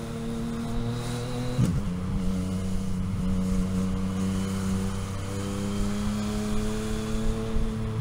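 Motorcycle engine running under way, heard from the rider's seat. About a second and a half in its pitch drops sharply, as at a gear change, then it holds steady and slowly climbs as the bike picks up speed.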